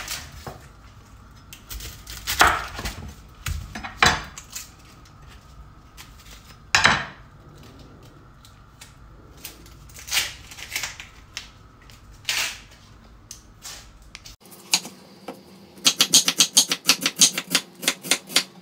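Cleaver slicing a red onion on a wooden chopping board: single knocks of the blade on the board every couple of seconds, then a fast run of about six cuts a second near the end.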